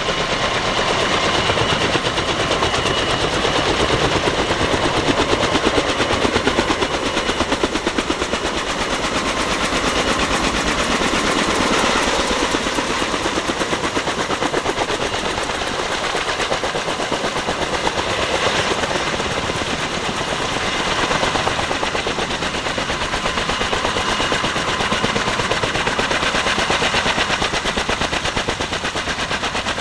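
Kaman K-MAX helicopter's intermeshing twin rotors beating in a fast, steady chop while hover taxiing, with a high, steady turbine whine under it.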